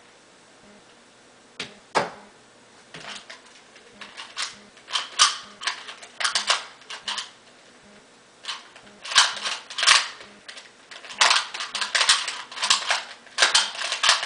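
A 2x2 puzzle cube being turned fast during a speedsolve: rapid plastic clicking and clacking in flurries with short pauses between. It starts about a second and a half in.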